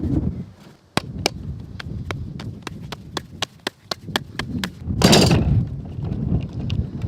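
A run of sharp, irregular clicks and taps over a low rumble, then a loud brief rushing noise about five seconds in.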